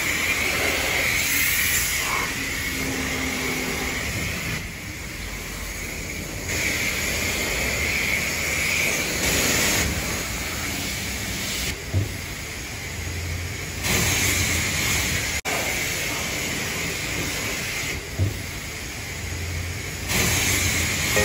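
High-pressure car-wash wand spraying water onto a car's body: a steady hiss that swells and drops every few seconds as the spray moves over the panels, with a couple of short dull thumps.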